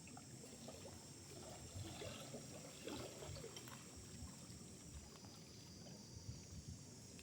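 Faint forest ambience of water trickling, with a steady high hiss behind it.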